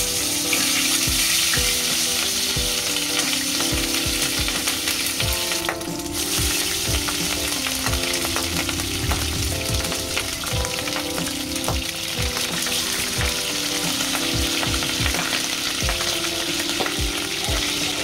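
Pork slices frying in hot oil in a pan covered with a mesh splatter screen: a steady sizzle with frequent small pops and crackles of spitting oil.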